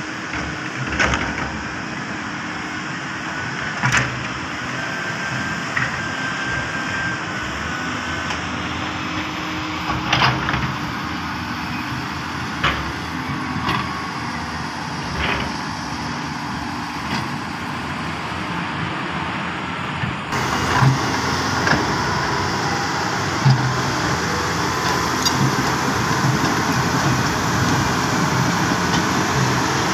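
Hyundai crawler excavator's diesel engine running steadily under hydraulic work, with a faint steady whine and occasional metallic clanks from the tracks and bucket.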